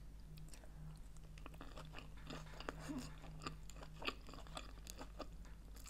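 A mouthful of vegetarian sushi roll being chewed: a run of small, irregular mouth clicks, faint, over a steady low hum.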